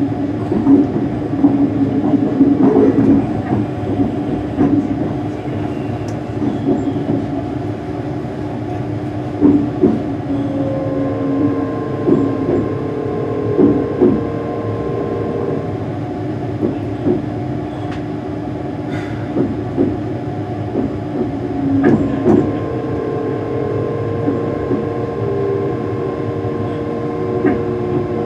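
Cabin noise of a Class 385 electric multiple unit in motion: steady rumble of wheels on rail with a steady electric whine whose tones shift a few times, and scattered knocks as the wheels pass over track joints.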